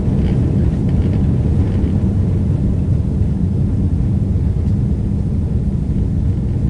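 Steady low rumble of a Boeing 777-200ER's engines and airflow heard inside the rear economy cabin as the jet climbs out shortly after takeoff.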